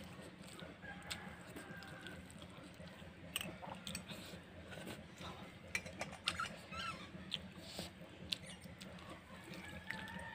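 A person eating water-soaked rice by hand from a steel bowl: wet chewing and mouth smacks, with scattered sharp clicks and the fingers working the rice in the bowl.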